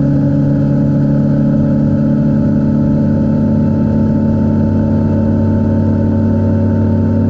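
Boat engine running steadily at constant speed while under way, loud, with an even hum that does not change.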